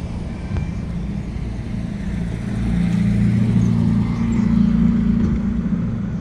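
Street traffic: a car's engine running as it drives past, the low hum swelling about halfway through and easing off toward the end.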